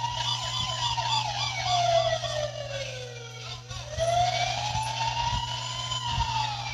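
Electronic siren from battery-operated toy emergency vehicles, wailing slowly up and down in pitch. It falls away about three seconds in and rises again, with a faster warbling tone laid over the first half.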